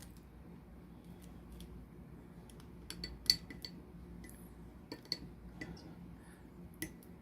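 Victorinox Bantam's steel combination can opener and cap lifter clicking and scraping against a metal bottle cap as its hook is worked under the cap's edge: scattered light metallic clicks, a small cluster about three seconds in and a few more later.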